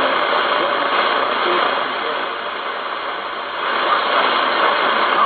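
Shortwave AM signal on 9.955 MHz from a Malahit-clone DSP SDR receiver's speaker, mostly static and hiss. The hiss dips in level for about a second and a half in the middle, then comes back.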